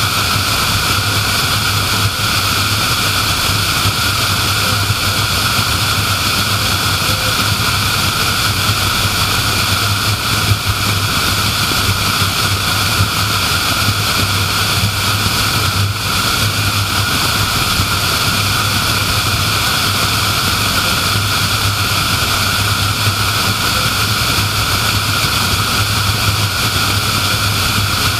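Steady road and tyre noise of a car driving at highway speed, with a constant low hum underneath.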